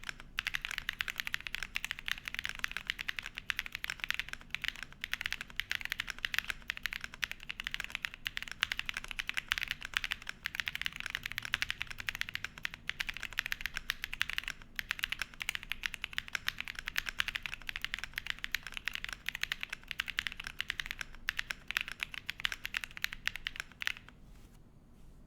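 Continuous typing on a Qwertykeys QK75 mechanical keyboard: dense, rapid keystroke clacks from bundled Ashen switches in an aluminum plate under PBT dye-sub keycaps. The typing stops about a second before the end.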